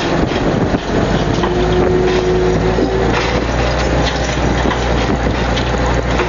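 Fishing boat's engine and net-hauling gear running with a steady low hum, over a dense crackle of creaks and knocks as the net comes in, with wind on the microphone; a brief whine rises out of it about a second and a half in.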